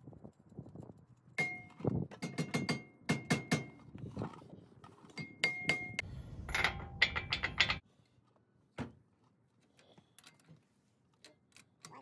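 Steel hand tools (sockets, extension and wrench) clinking and rattling against each other and the hub in several short runs of quick metallic clicks, some with a ringing note. A few single knocks follow in the second half.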